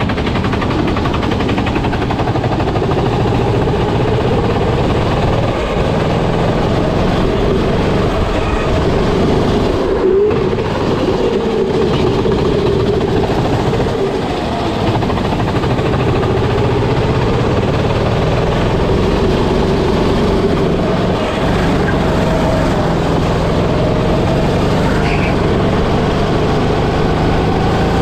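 Go-kart engine heard onboard while racing, its pitch rising and falling as the driver accelerates and lifts through the corners, with a brief dip a third of the way in.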